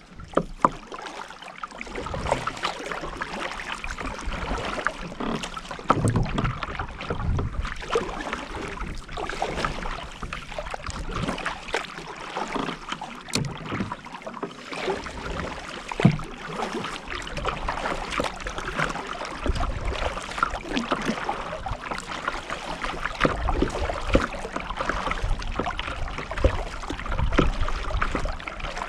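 Kayak paddling: paddle blades dipping and splashing with water trickling off them, amid many small splashes and drips. Wind gusts rumble on the microphone now and then.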